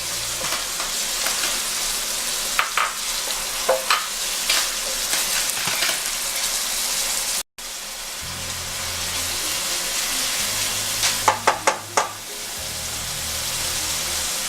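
Chopped onion sizzling steadily in hot oil in a pot as it browns, stirred now and then. The sound drops out for an instant midway, and a quick run of sharp knocks comes about eleven seconds in.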